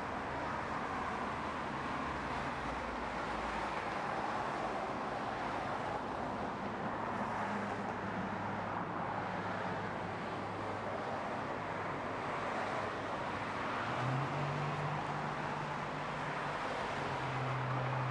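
Ferrari FF's V12 engine idling steadily at its exhaust tips, with the idle note stepping up briefly about 14 seconds in and again near the end. Road traffic hisses in the background.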